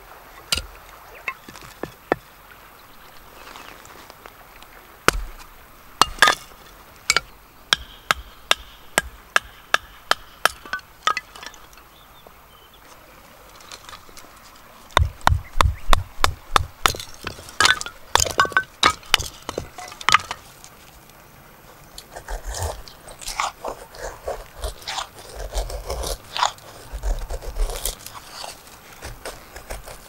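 Kindling being split on a wooden chopping round, a blade driven through the wood by a wooden baton: runs of sharp wooden knocks, about two a second, then a quicker, heavier run with low thuds. Near the end, a knife shaving thin curls off a stick to make a feather stick, an irregular scraping.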